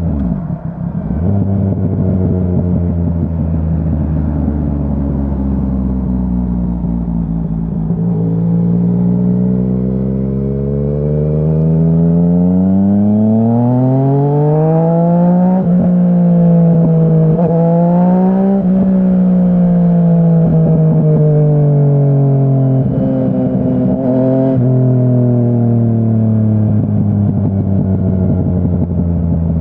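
Yamaha Tracer 900's three-cylinder engine through a Dominator HP3 full exhaust system, heard while riding. It runs steady at low revs, then climbs through the revs with a rising note, breaks briefly a few times near the peak, and eases back down to a low steady run.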